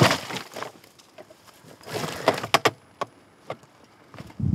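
Sharp knocks and clatter of an electric dirt bike and the rider's boots against rock as the bike is worked slowly over a rocky trail, with a quick cluster of knocks about two seconds in and a few single knocks after.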